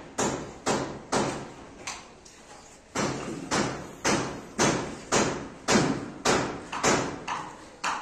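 Hammer blows struck at a steady pace of about two a second, each one ringing briefly, with a short pause about two seconds in.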